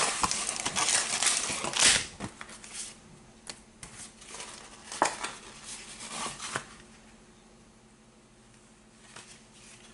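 Plastic blister pack of trading cards being handled and torn open: dense crinkling and crackling for about two seconds, then scattered light clicks and rustles that die away.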